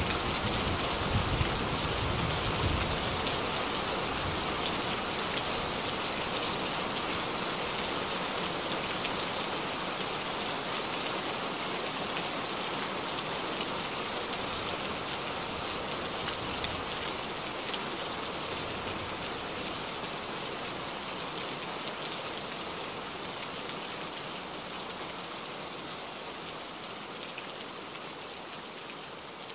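Heavy rain falling on a lake's surface, a steady even hiss of drops, fading out gradually over the last few seconds.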